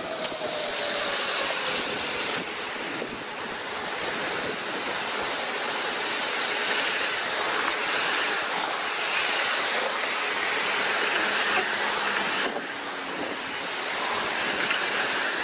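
Strong storm wind rushing steadily, an even hiss without words or distinct events.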